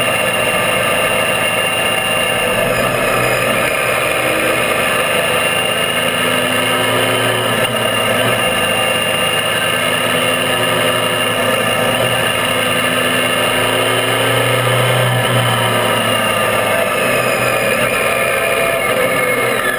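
Triumph Tiger 800's three-cylinder engine running steadily under way, mixed with heavy wind and road noise at a camera mounted low beside the front wheel.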